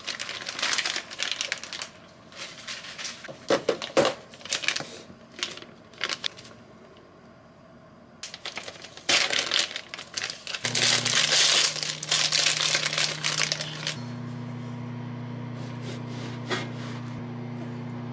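Plastic food packaging crinkling and rustling in irregular bursts as it is handled and torn open, busiest and loudest in the second half, with a short lull in the middle.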